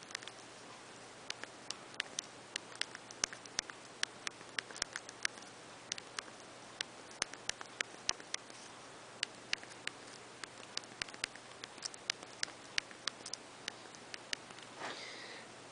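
Keys of the LG Xenon's slide-out QWERTY keyboard clicking as a text message is thumb-typed: irregular sharp key presses, several a second.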